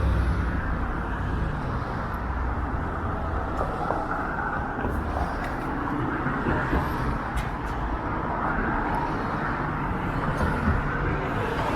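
City street traffic: cars passing on the road with a steady rumble of engines and tyres.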